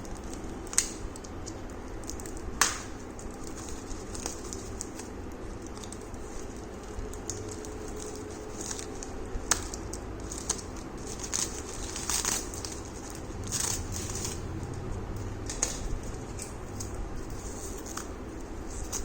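Packaging being handled and unwrapped: bursts of crinkling and rustling, with scattered sharp clicks and taps. The two loudest clicks come about a second in and just under three seconds in.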